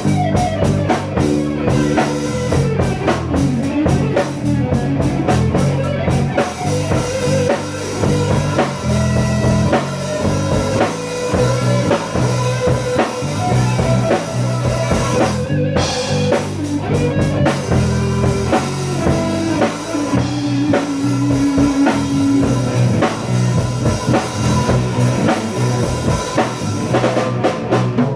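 Rock band improvising live: drum kit, electric guitar and bass playing together, loud and continuous, with sustained held guitar notes over a steady beat.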